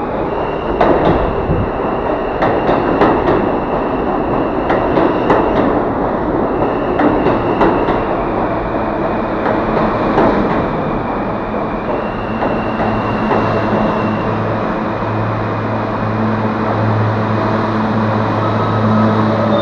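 New York City subway train pulling into a station and passing close by: wheels clack over rail joints, with high-pitched squeals as the cars go past. About halfway through the clacking fades and a steady low hum takes over as the train slows to a stop.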